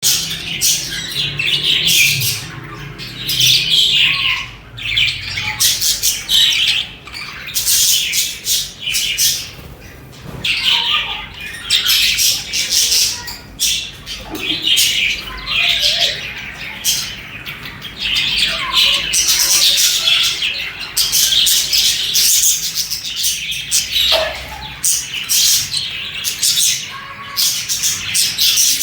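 Budgerigars chirping and squawking in a dense, unbroken stream of short, high chirps.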